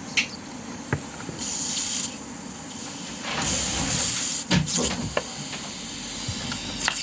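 Compressed air hissing from the control button valve of an ISRI air-suspension truck seat, coming in bursts, with a few sharp clicks. The hissing button is the sign of an air leak at the valve.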